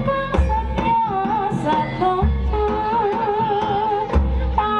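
Javanese folk ensemble music for a trance dance: a wavering, ornamented lead melody over hand drums and percussion, with a deep beat about every two seconds.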